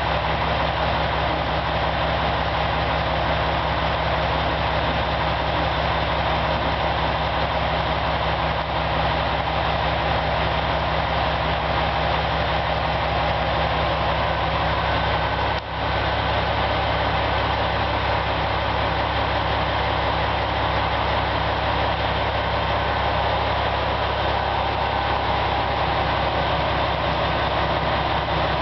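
JR West KiHa 120 diesel railcar idling while stationary, its diesel engine running at a steady, unchanging note.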